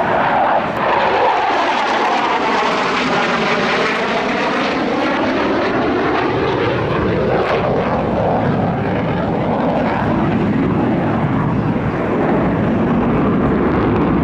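An F-15E Strike Eagle's twin jet engines running at high power in afterburner during a hard banking turn. The noise is loud and steady, with a sweeping, phasing swirl through the middle of it.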